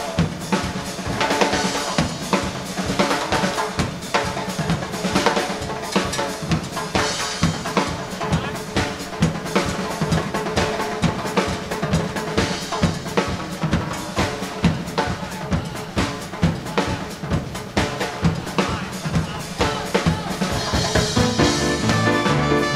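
Live Latin dance band playing, with the drum kit and percussion to the fore in a steady rhythm of rimshots, bass drum and rolls over bass notes; the fuller band comes in near the end.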